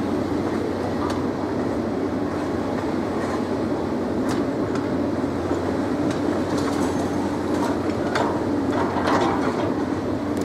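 Steady heavy mechanical rumble with scattered clicks and knocks throughout.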